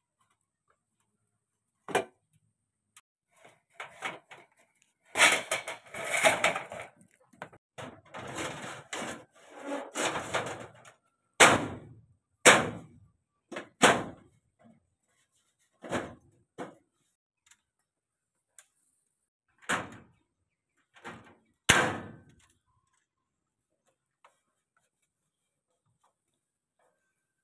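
Scraping and rustling as ceiling spandrel panels are handled and slid into place, then a run of sharp, irregular knocks and clacks as the panels are pushed and tapped home.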